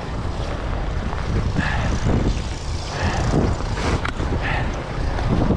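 Boots crunching through deep snow, about one step a second, over a steady low rumble of wind on the microphone.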